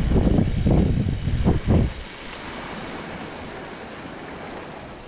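Wind buffeting the action-camera microphone in loud, rough low gusts while riding a bike. About two seconds in it gives way to the steady rush of a small creek flowing over rocks.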